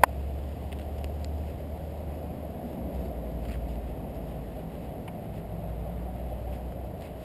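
Harley-Davidson Sportster 883's air-cooled V-twin idling with a steady low rumble, and a single sharp click right at the start.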